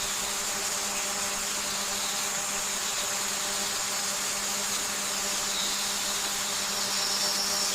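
A steady hiss with a constant low hum and a brighter high band. It begins and ends abruptly.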